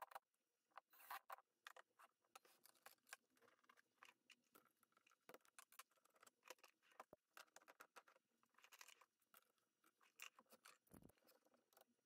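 Faint, scattered clicks, taps and scrapes of hands handling metal lathe parts and a wood blank while mounting it on a mini wood lathe, with one duller knock near the end.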